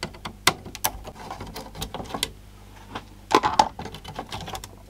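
Sharp plastic clicks and knocks as a CD player's front-panel circuit board and plastic front panel are worked loose and lifted off, with a louder burst of clatter about three and a half seconds in.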